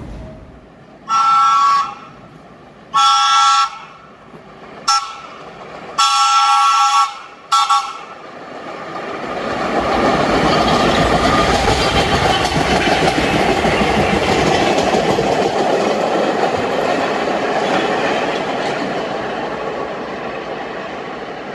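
Subway train horn sounding five blasts in a long-long-short-long-short pattern. Then the train runs past with a steady rumble that swells about nine seconds in and slowly fades.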